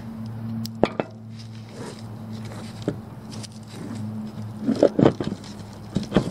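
A wheel being fitted onto a metal axle: scattered knocks and metallic clinks, with a cluster of louder clunks about five seconds in and another shortly after six seconds. A steady low hum runs underneath.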